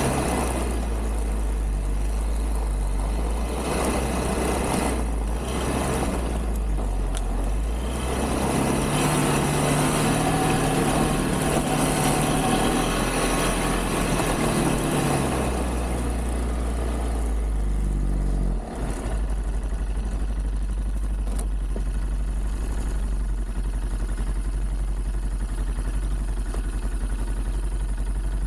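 A quad (ATV) engine running as it is ridden along a snowy trail. The revs rise and hold for several seconds in the middle, then drop off briefly, and the engine runs on steadily.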